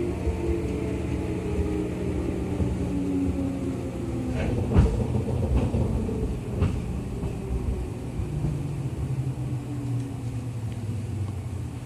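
Running sound inside a JR 211 series electric train: steady low rumble of wheels on rail, with motor and gear whine falling in pitch as the train slows for a station. A few sharp knocks of the wheels over rail joints come about four to seven seconds in.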